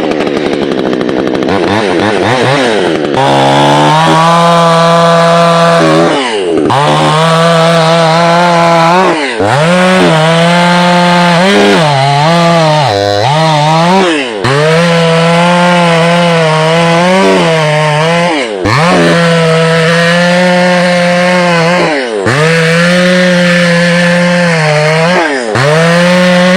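Vevor 62cc two-stroke gas chainsaw revving up from idle, then running at high speed while it cuts through a tree limb. The engine speed dips and picks back up several times as the throttle is eased and reapplied between cuts.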